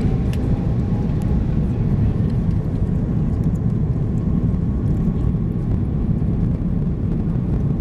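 Steady low rumble of engines and airflow inside the cabin of an Airbus A330-300 airliner, heard from a seat near the back.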